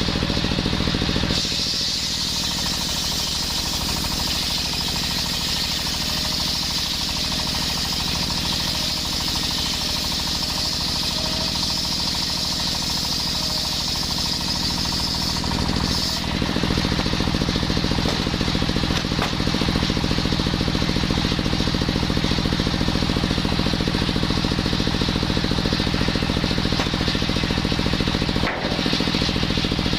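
Engine-driven circular wood saw running steadily. A high whine rides over the engine from about two seconds in to about halfway through, then drops away and leaves a stronger, lower engine note.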